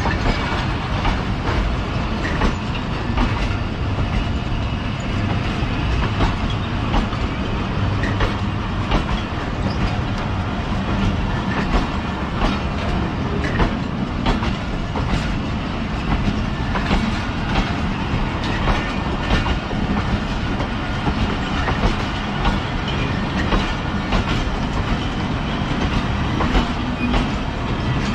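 Pakistan Railways passenger coaches rolling past a platform, their wheels clattering over the rail joints with frequent clicks and knocks.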